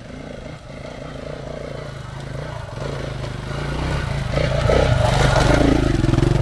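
Dirt bike engine pulling up a steep rocky climb, growing steadily louder as it comes nearer. It is loudest and roughest in the last two seconds.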